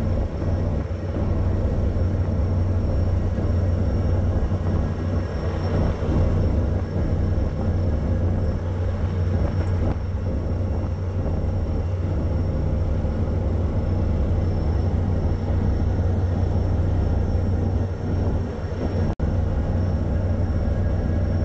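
Steady low drone of a ship's engine machinery. It cuts out for an instant near the end.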